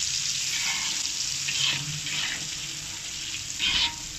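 Meat masala and chilli powder stirred into water being poured into a pan of hot oil, spices and tomatoes: a steady rush of liquid. There is a short louder burst near the end.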